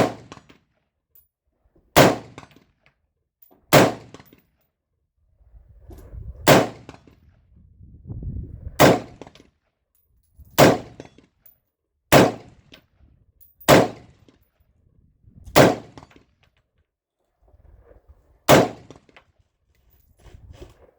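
Kodiak Defense WK180-C Gen 2 rifle fired in slow semi-automatic fire, about ten sharp shots spaced one and a half to three seconds apart, each followed by a short ringing echo.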